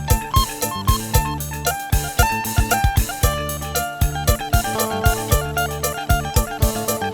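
Instrumental background music with a steady beat: deep drum hits about two to three times a second under a melody of short plucked or keyboard notes.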